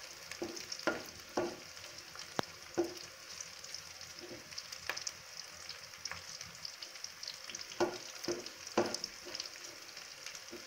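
Sliced onions and green chillies sizzling in hot oil in a metal pan, with a steady hiss. A wooden spatula stirs them, knocking and scraping against the pan several times, with a quieter stretch in the middle.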